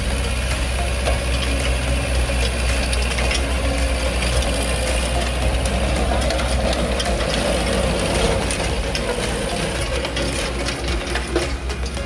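Kubota L5018 diesel tractor engine running steadily, with scattered clicks and knocks over it.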